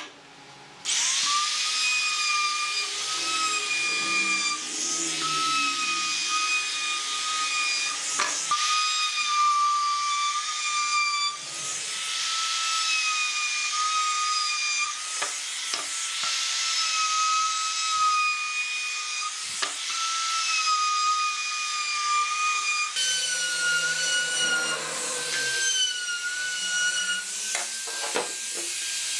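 Compact trim router's motor running with a high, steady whine while its bit cuts along the edges of pine boards, the pitch sagging slightly and recovering as the bit takes wood. It starts about a second in, and near the end the whine runs a little higher.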